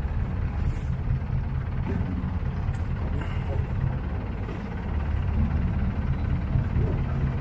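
Sightseeing boat's motor running steadily, a low rumble with the hiss of water and wind around the hull.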